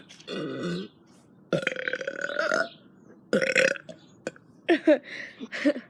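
A person burping on purpose: several burps, the longest drawn out for about a second on a steady pitch.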